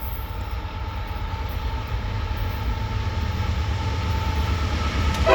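Diesel locomotives of an approaching CSX freight train running, a steady low rumble with a faint steady whine that grows slowly louder. A short loud horn blast starts right at the end.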